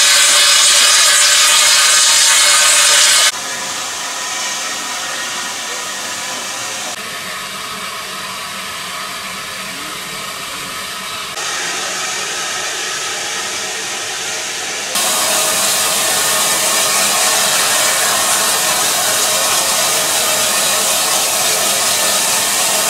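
Steam locomotive hissing steadily with escaping steam. The hiss changes abruptly in loudness and tone several times, dropping about three seconds in and rising again about fifteen seconds in.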